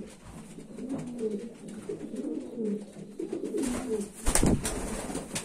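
Racing pigeons cooing repeatedly in low, throaty, rising-and-falling phrases. A loud, brief rustling burst comes a little after four seconds in as the held pigeon is moved.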